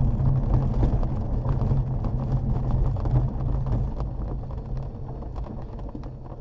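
Glider's landing wheel rumbling over a grass airstrip during the ground roll, with rattles from the airframe; the rumble dies down over the last couple of seconds as the glider slows.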